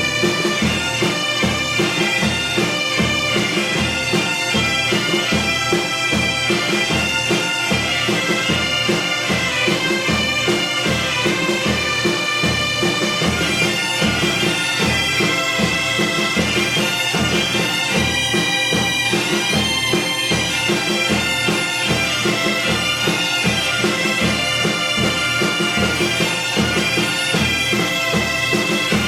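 Music played on a reed wind instrument over a steady drone, with a regular drum beat throughout.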